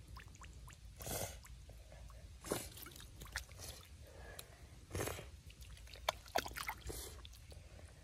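Hands splashing and groping in a shallow muddy puddle: water sloshing and mud squelching in short bursts a second or two apart, with a few sharp clicks a little after the middle.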